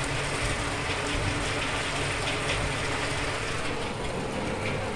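Steady hiss of heavy thunderstorm rain, with a faint steady low hum underneath and no thunderclap.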